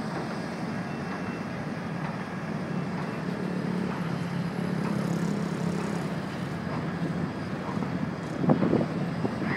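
Passenger ferry's engines running with a steady low hum as it leaves the berth, with wind noise on the microphone. A short, louder burst of noise comes near the end.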